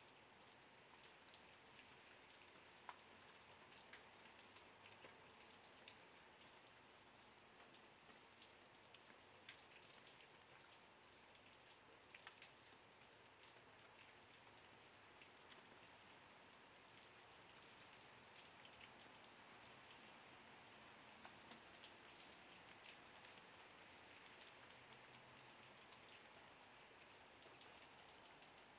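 Faint, steady rain pattering, with many small scattered drop ticks.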